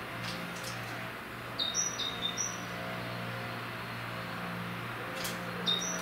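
Short high chirps of a small songbird, a few in a quick group about a third of the way in and again near the end, over a steady low hum.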